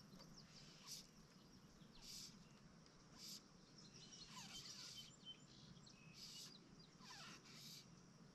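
Faint outdoor ambience: an insect chirping in short high-pitched pulses about once a second, with a few faint bird calls falling in pitch around the middle.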